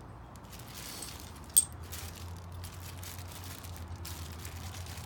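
Small loose parts being handled, with light clicks and rustling and one sharp click about a second and a half in, over a faint low hum.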